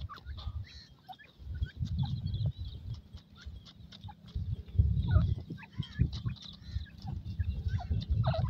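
Grey francolins giving short, soft chirps and peeps, scattered through, some sliding quickly in pitch. Under them runs a low rumble that comes and goes and is loudest about five seconds in.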